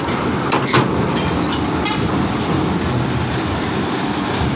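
Heavy truck running as it drives onto a roll-on/roll-off ferry, a steady dense rumble with a couple of short knocks about half a second in.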